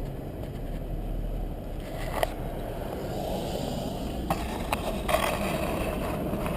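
Car driving, a steady rumble of tyre and road noise, with a few sharp clicks and knocks, the loudest about five seconds in.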